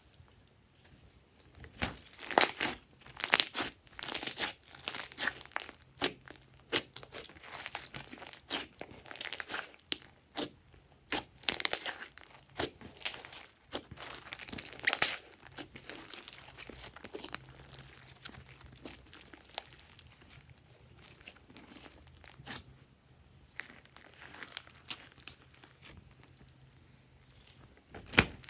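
Glossy slime with small foam beads being stretched, pulled and squeezed by hand, giving irregular wet crackles and pops. The crackling starts about two seconds in, is busiest in the first half and grows sparser and fainter later on.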